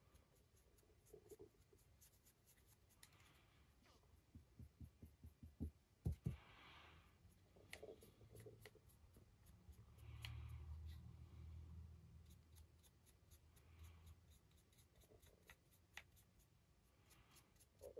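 Near silence with faint close-up handling sounds: small ticks and rubs of a fine paintbrush and a 3D-printed figure being turned in the hands, with a couple of sharper knocks about six seconds in.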